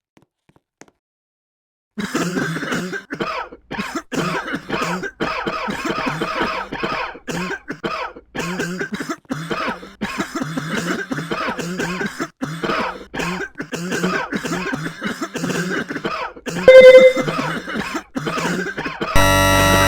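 A person coughing over and over in rapid fits, starting about two seconds in. Near the end comes a short, very loud tone, and then loud electronic music cuts in.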